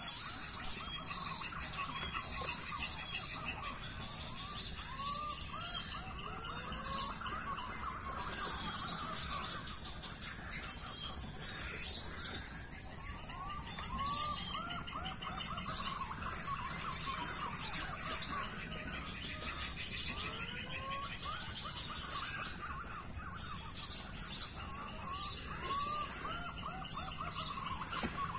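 Birds calling in the forest: many short, repeated chirping notes, over a steady high-pitched whine.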